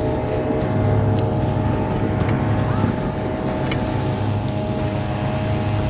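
Outboard motors of bass boats running steadily, a constant engine drone.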